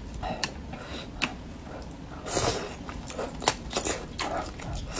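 Close-miked wet chewing and lip smacks of a person eating spicy braised fish, with many small mouth clicks and a louder noisy sound a little past two seconds in.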